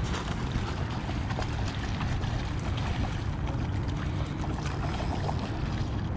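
Steady wind rumbling on the microphone, with light splashing from a hooked trout thrashing at the surface close to shore.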